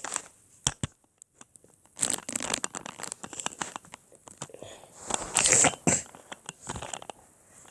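Plastic 2x2 Rubik's cube being twisted by hand: irregular clicks and short scraping rattles of the layers turning, loudest in two bursts about two and five and a half seconds in.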